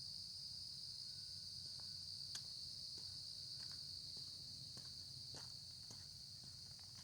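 Steady high-pitched insect chorus, a continuous trill with a fainter upper band, with a few faint scattered clicks of footsteps on the lane.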